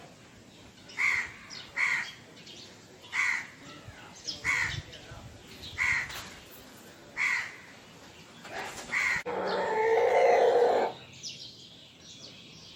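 Crows cawing: a run of about eight short, harsh caws, one every second or so, followed near the end by a louder, longer call of about a second and a half.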